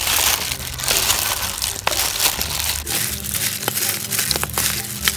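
A plastic-gloved hand tossing boiled chicken feet with lemongrass, kumquats and chili sauce in a stainless steel basin: steady wet squelching and crinkling of the plastic glove, with a few sharper clicks.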